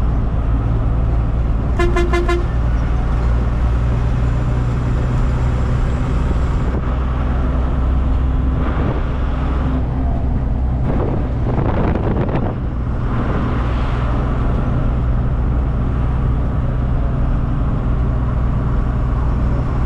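A Tata 1613c diesel truck running steadily on the road, with a short horn blast about two seconds in. A rushing noise swells a couple of times in the middle.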